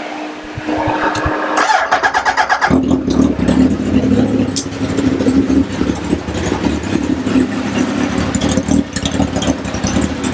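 Sport motorcycle engine being started: the electric starter cranks it in quick, even pulses for about a second, and it catches about two and a half seconds in. It then settles into a steady idle.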